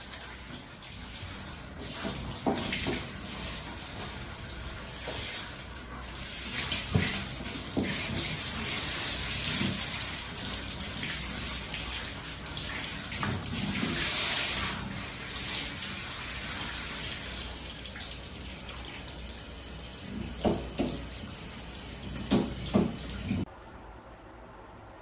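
Water spraying from a hand-held shower head onto a dog's wet fur: a steady hiss with a few short knocks and bumps along the way. The spray cuts off suddenly near the end.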